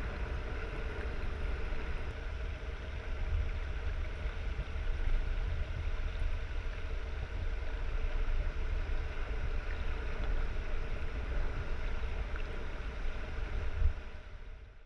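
Underwater sound of a large aquarium tank: a steady low rumble of moving water with a few faint steady hum tones above it, fading out near the end.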